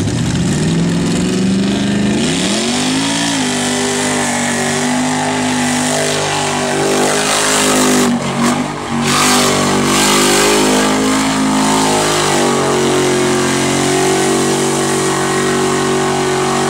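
Lifted Jeep's engine revving hard at full throttle through a mud pit, the pitch climbing over the first three seconds and then held high. About eight seconds in the note wavers and breaks up with a spatter of mud as the Jeep ploughs into deep mud, then steadies at high revs again.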